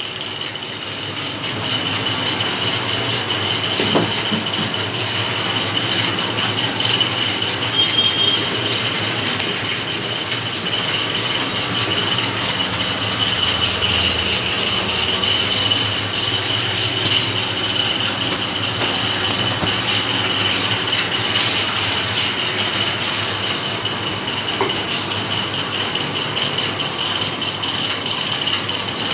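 Jigger dyeing machine running, a steady mechanical rattle with a constant high whine as its rollers wind cloth through the dye trough.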